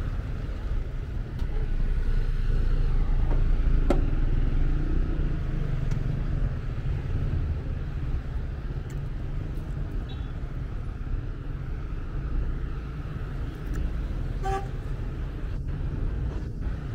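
City street traffic: cars running past with a steady low rumble, louder for a few seconds about two to five seconds in, and a short car horn toot about fourteen and a half seconds in.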